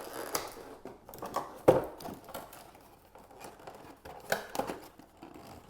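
Cardboard packaging being handled and fitted back together: scattered rustles and scrapes with light knocks, the sharpest near two seconds in and again a little after four seconds.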